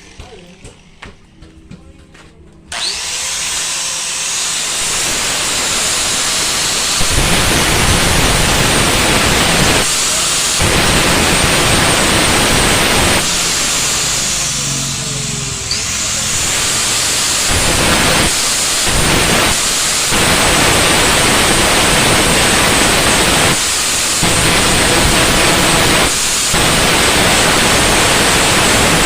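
A power tool starts abruptly about three seconds in and runs loud and steady, with several brief dips, as it works on the material.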